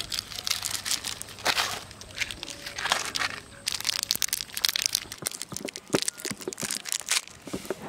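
Small plastic sachet crinkling and crackling as it is handled and torn open by hand: a dense run of short, sharp crackles.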